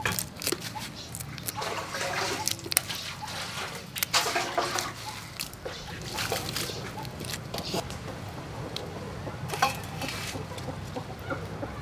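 Cooked shrimp being peeled by hand: shells cracking and wet flesh squishing, heard as many small irregular clicks.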